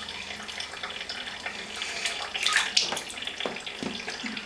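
Bathwater sloshing and splashing in a plastic baby bathtub, stirred by a baby's hands and toys, with a few sharper splashes a little past halfway.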